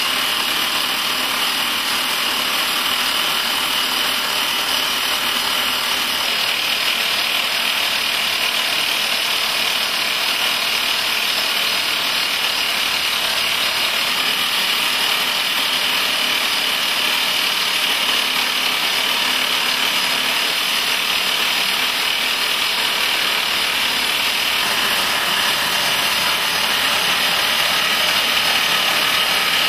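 Rock drill on a drilling jumbo's boom, drilling blast holes into tunnel rock: a loud, steady drilling noise without let-up.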